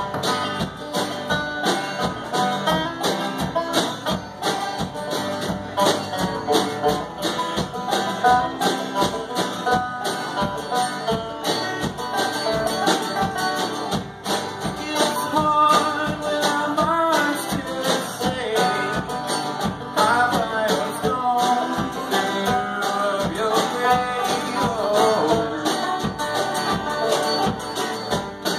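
Live acoustic band playing with a steady beat: banjo picking and a strummed acoustic guitar, with a man singing mostly in the second half.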